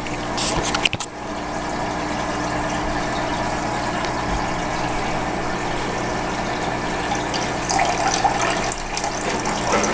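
Aquarium filter pump running steadily with water flowing and splashing into the tank, with a few clicks about a second in.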